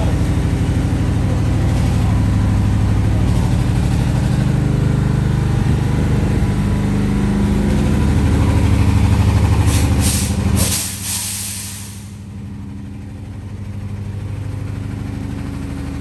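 Heavy truck's diesel engine running steadily as it tows a loaded low-loader trailer, with a short burst of air-brake hiss about ten seconds in, after which the engine drops to a quieter idle.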